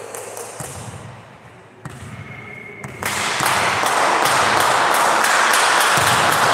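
A volleyball bouncing and knocking on a wooden gym floor, a couple of dull thuds in the first three seconds. From about three seconds in, a loud, even din with scattered clicks fills the gymnasium.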